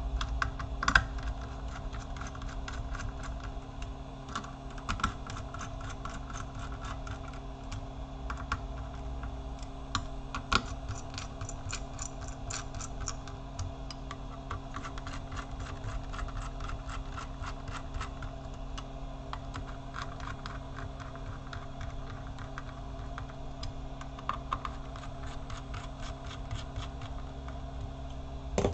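Many small clicks and taps of a laptop's copper heat-pipe heatsink and fan being handled and seated back onto the motherboard, coming in quick runs, over a steady low hum.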